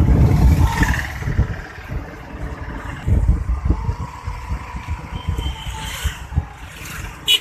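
Road noise from a moving vehicle: engine rumble and gusts of wind buffeting the microphone, loudest in the first second. A short horn toot sounds at the very end.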